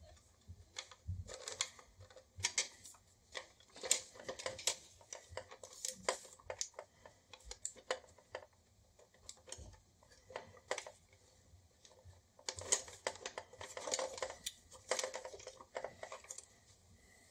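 Hard plastic parts of an old toy clicking, rattling and knocking as they are handled and taken apart, in irregular bursts with a few dull thumps; the clicking is busiest about three-quarters of the way through.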